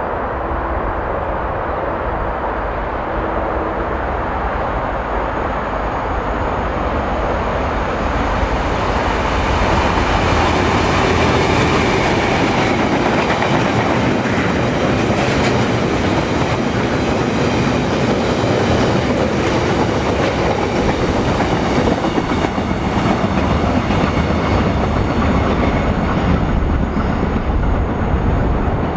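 Irish Rail 071 class diesel locomotive, an EMD two-stroke, approaching and passing, getting louder about eight to ten seconds in. It is followed by a long rake of flat wagons loaded with continuous welded rail, their wheels rumbling steadily past on the track.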